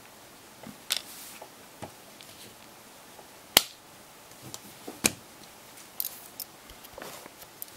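Plastic clips of an LG G2x phone's rear housing snapping loose as it is pried up with a thin tool: a series of about six sharp clicks, the loudest about three and a half seconds in.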